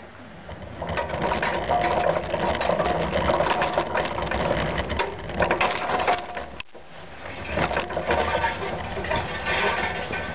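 Metal crucible pouring rig rattling and clattering as it is moved while still holding the glowing crucible, with a brief lull about two-thirds of the way through.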